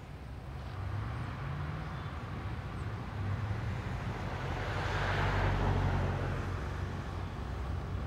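A car driving past, its tyre and road noise swelling to a peak about five seconds in and then fading, over a steady low rumble.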